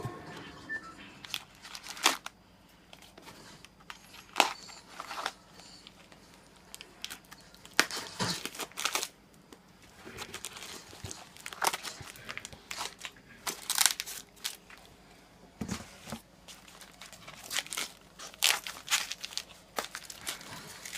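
Packaging being unwrapped: intermittent crinkling and tearing of wrapping, with scattered sharp clicks and knocks.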